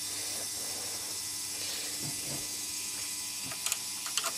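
Small Maxon geared DC motor running the transponder's motorised hook-release mechanism, a steady mechanical whir through its gear train. Two pairs of sharp clicks come in the last second.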